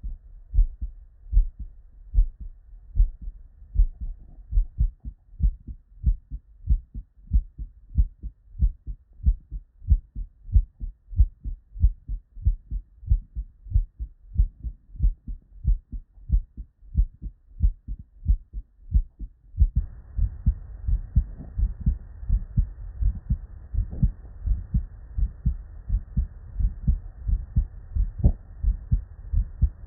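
Normal human heart sounds heard through a stethoscope: a steady lub-dub of the first and second heart sounds, beat after beat, from a heart with normal physiology. About two-thirds in, another heart takes over, with more background hiss.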